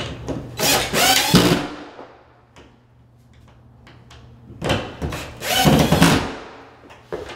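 Cordless drill/driver tightening screws through a plastic shelf support into wall anchors: two short runs of the motor, about four seconds apart, the pitch shifting as each screw drives home.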